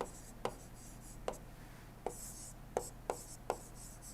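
A pen drawing a diagram: short scratchy strokes with about seven light taps as the pen touches down, at an uneven pace.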